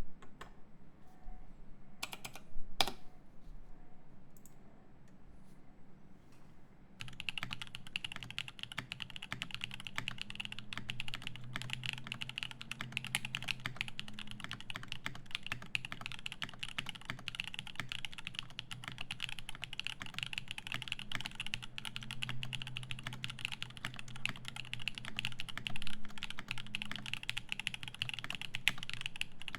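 GHS.RAR mechanical keyboard with lubed Zaku switches on an aluminium plate and GMK keycaps, typed on fast and continuously from about seven seconds in. Before that come a few isolated sharp clicks, two of them the loudest sounds here.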